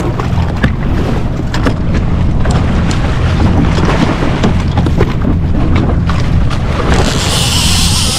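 Wind rumbling on the microphone over the water, with scattered knocks and slaps around the jet ski. About seven seconds in, a loud hiss of splashing starts as a hooked Spanish mackerel thrashes at the surface beside the ski.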